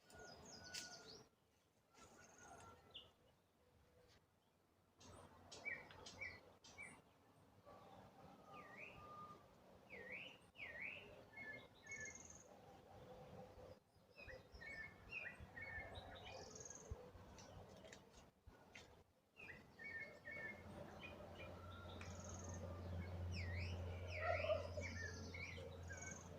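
Faint chirping of several birds: many short, quick notes and brief down-and-up chirps scattered through, with a low steady hum coming in about twenty seconds in.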